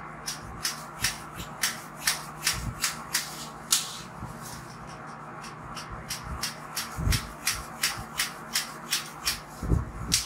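Barber's scissors snipping hair in quick cuts, about three a second, in two runs with a pause of a couple of seconds between them. A couple of dull thuds come in the second run.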